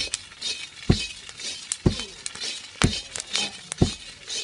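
Corn kernels being dry-roasted and stirred in a metal wok with wooden sticks: a dry rattling and scraping of kernels against the pan, with a sharp knock about once a second as the sticks strike the wok.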